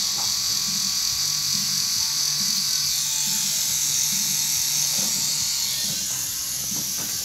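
Electric pen-style tattoo machine running with a steady buzz while the needle works ink into the skin of a forearm.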